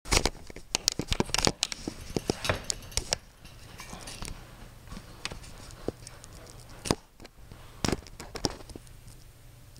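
Irregular clicks, knocks and rustling: a quick cluster in the first second and a half, then single knocks scattered through the rest.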